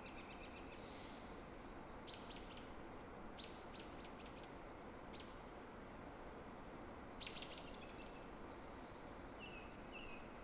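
Faint outdoor ambience: a steady hiss with small birds chirping in short, high calls every second or two. A few brief falling notes come near the end.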